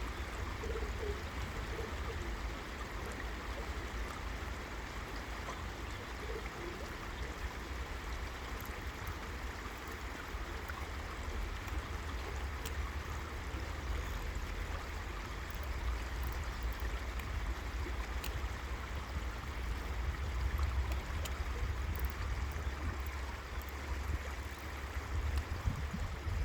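River water flowing steadily, an even rushing sound with a deep low rumble underneath.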